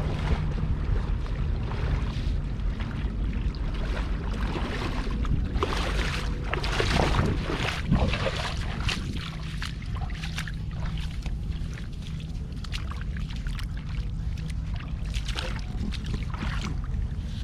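Water splashing and sloshing, heaviest about six to eight seconds in, with scattered short knocks and clicks over a steady low rumble.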